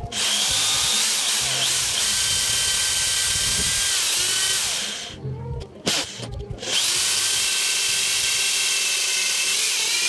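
Corded electric drill boring into a wooden beam: the motor whines over the grinding of the bit. It runs for about five seconds, stops briefly, then starts again and runs on.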